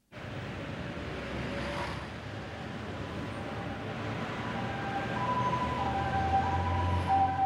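City street traffic: a dense, steady din of cars with a low engine rumble that grows near the end. From about five seconds in, steady high tones at two alternating pitches sound over it, like horns or a two-tone siren.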